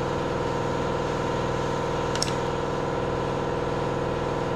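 Steady machine hum of a running motor, made of several even, unchanging tones, with one brief light click about two seconds in.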